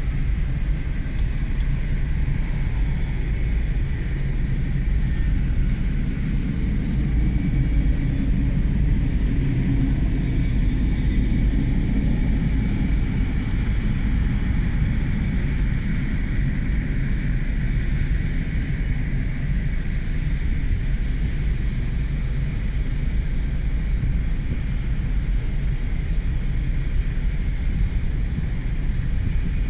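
Freight train of autorack cars rolling past, a steady rumble of wheels on the rails.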